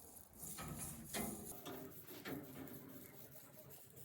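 Faint rubbing and scraping of a piece of bacon being wiped over a barbecue grill grate to grease it, with a few louder scrapes in the first half.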